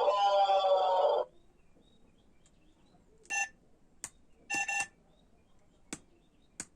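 Bus horn sounding, a single held blast that cuts off about a second in. Then come two short electronic beeps and a few sharp clicks.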